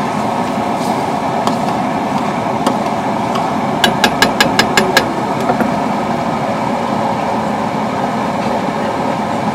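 A steady roar of background noise, with a quick run of about seven sharp taps about four seconds in: a metal ladle knocked against the pan of simmering gravy.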